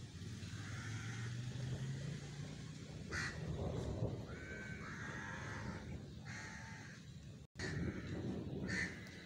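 Kittens mewing several times in short, high, arching calls, with two short harsh crow caws, about three seconds in and near the end.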